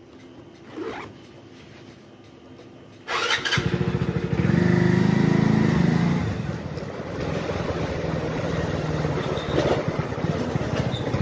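Motorcycle engine comes in suddenly about three seconds in, loudest as the bike pulls away, then running steadily as it rides along.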